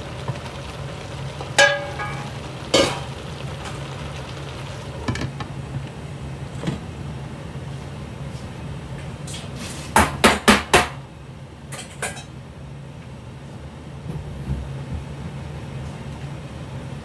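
Cookware clanking: a metal bowl rings against the pan as the okra is tipped in, and the glass lid goes on the pot. About ten seconds in there is a quick run of four sharp knocks, then one more. A steady low hum sits under it all.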